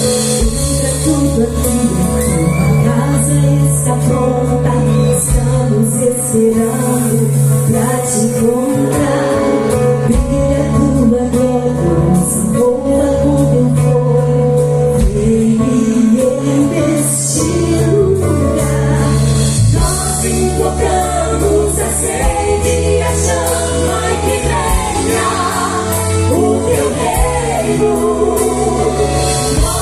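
Live gospel music: a band playing with sung vocals.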